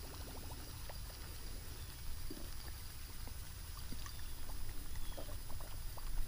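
A miniature Whopper Plopper topwater lure gurgles and plops faintly across the surface as it is reeled in. Light scattered ticks come from the baitcasting reel, and a low wind rumble sits on the microphone.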